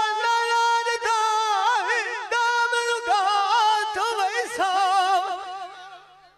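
A man singing Punjabi dholay unaccompanied into a microphone, on long high held notes with quick ornamental turns. The singing fades out about six seconds in.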